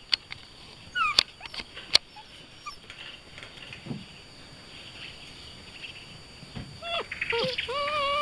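Beauceron puppy whining and yelping: a short falling yelp about a second in, then repeated high whines from about seven seconds on. A few sharp clicks, the loudest sounds, come in the first two seconds.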